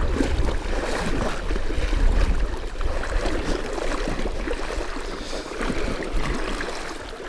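A person wading in waders through deep river water, legs sloshing and splashing as he pushes his way out of a deep spot. The splashing is busy and irregular and eases off slightly toward the end.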